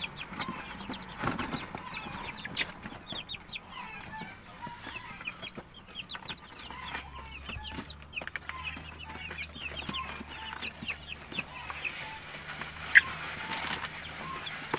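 A flock of chickens clucking and cackling, with many short calls overlapping and one louder call near the end. The flock is agitated, having seen something it takes for a threat.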